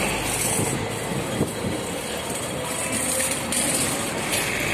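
Busy city street traffic noise, steady throughout, with a minibus driving past close by at the start.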